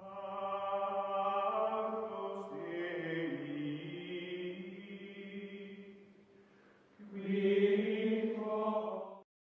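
Outro music of long-held, choir-like chanting chords. It fades away about six seconds in, swells back a second later, and cuts off abruptly near the end.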